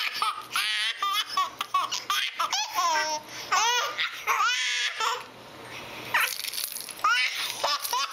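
Twin babies laughing at each other in repeated short, high-pitched bursts of giggles and belly laughs, with a brief lull about five seconds in.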